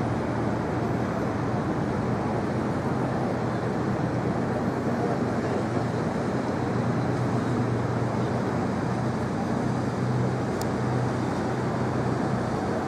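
Steady outdoor city background: an even rumble of distant traffic with a continuous low hum underneath, unchanging throughout.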